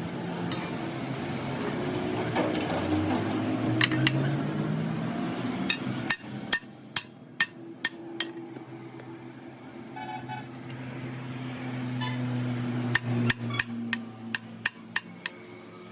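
Hammer blows on metal: about five strikes about six seconds in, then a quicker run of about eight near the end, each with a short ring. Under them an engine runs, its pitch rising over the first few seconds and then holding steady.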